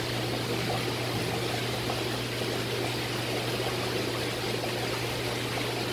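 Tank water running steadily, a trickling, pouring sound of the kind made by an aquarium filter's return flow, over a steady low hum.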